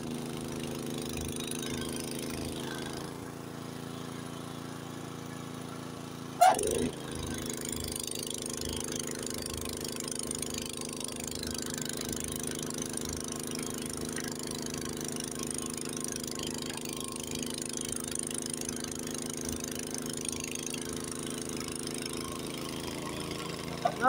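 Honda HS80 tracked snowblower's engine running steadily under load as it churns through deep snow and throws it out of the chute. A brief loud sound comes about six and a half seconds in.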